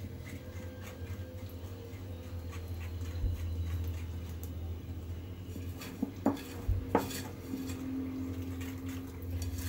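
Hand wire whisk beating flour into an egg, sugar and oil batter, its wires clicking and scraping rapidly against a ceramic bowl. There are two sharper knocks about six and seven seconds in, over a steady low hum.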